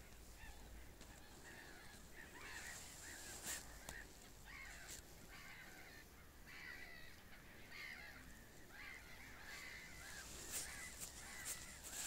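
Faint waterfowl calling across the lake: many short calls, one after another.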